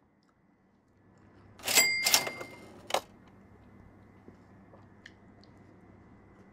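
Brief handling noises at a table: a short, loud rustling clatter with a metallic ring about two seconds in, then a single sharp knock about a second later, then a few faint ticks.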